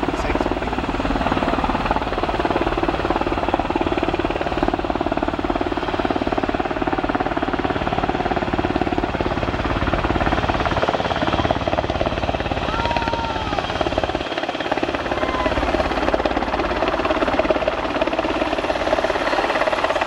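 NH90 (Hkp 14) military helicopter's rotor and turbine engines running steadily as it approaches and descends to land.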